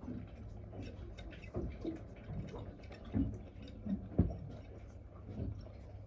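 Irregular knocks, clicks and light rustles of objects being handled, over a steady low hum; the sharpest knock comes about four seconds in.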